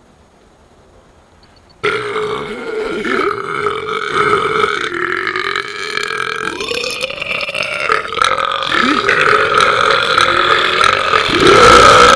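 A man's deliberate, on-command burp, one very long drawn-out belch. It starts about two seconds in, wavers in pitch a few times, and swells to its loudest near the end.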